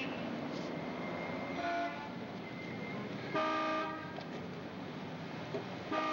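Car horn tooting three times over a steady background of street traffic: a short toot a little under two seconds in, a longer, louder one about halfway through, and another near the end.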